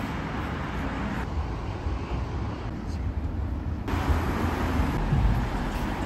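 City street traffic: a steady rumble of cars passing on the road, with the sound changing abruptly about a second in and again near four seconds.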